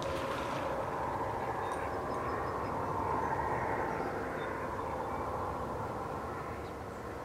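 Steady distant engine drone, swelling a little about three seconds in and easing near the end.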